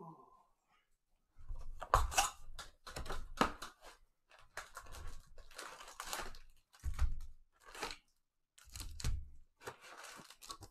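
A Panini Prizm football card hobby box being torn open and its foil-wrapped packs pulled out: a run of irregular tearing, crinkling packaging noises with short gaps between them.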